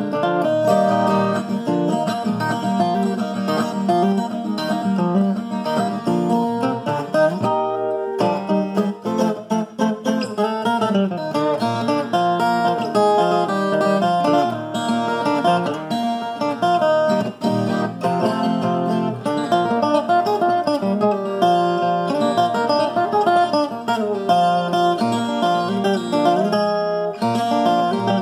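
Del Vecchio viola caipira, the Brazilian ten-string guitar with five paired courses, tuned to D# and played solo in a picked ponteio: a steady run of plucked melody notes and chords, with a short break about eight seconds in.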